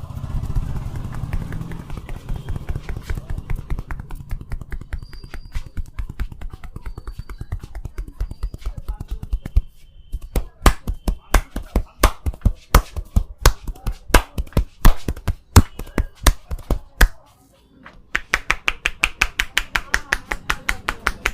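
Barber's hands striking the body in a percussive massage, a long run of rapid rhythmic slaps and taps. Light fast patting at first, then heavier evenly spaced slaps, a brief pause about 17 seconds in, then quicker slaps again.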